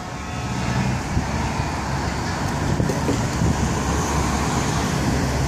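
Cars passing through a roundabout: steady traffic noise with low engine hum, growing slightly louder over the first second.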